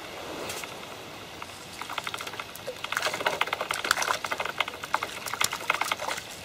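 Hooked crucian carp splashing at the water's surface as it is played in, a quick run of splashes starting about two seconds in and loudest in the second half.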